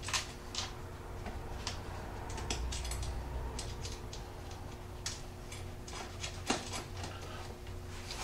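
Light, irregular metallic clicks and ticks of a nut and washer being handled and fitted by hand onto a foot peg extender's mounting bolt, over a steady low hum.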